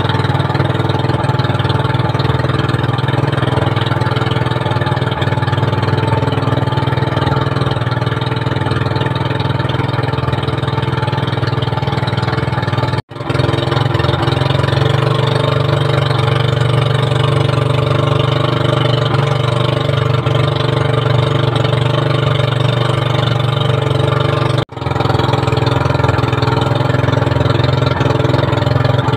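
Outrigger fishing boat's engine running steadily under way, a constant drone with a strong low hum. The sound drops out for an instant twice.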